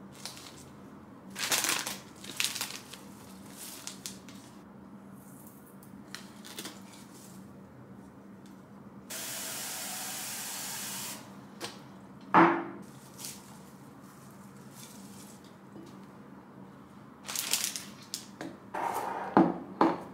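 Kitchen tap running into a glass jar for about two seconds midway, a steady hiss of water. Around it are scattered short knocks, clinks and rustles from handling glass jars and flower stems on the counter.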